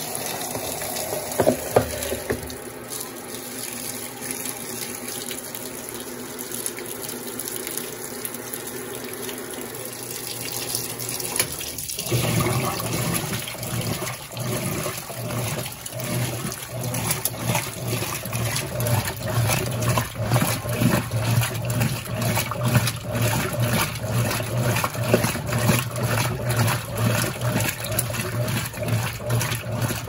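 Brastemp Total 9 kg top-loading washing machine filling with water during its rinse. About twelve seconds in, the agitator motor starts with a low steady hum and churns the clothes back and forth, sloshing the water.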